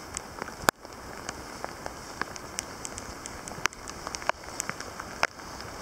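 Irregular sharp ticks and taps, a few a second, over a steady outdoor hiss, with louder knocks about a second in and near the end.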